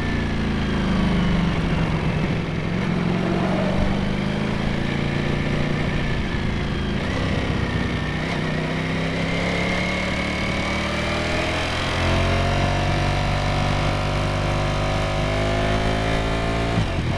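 Ducati Streetfighter V4S V4 engine and exhaust running under way on a ride. The pitch falls early on, then climbs gradually through the middle. There is a short break in the note near the end.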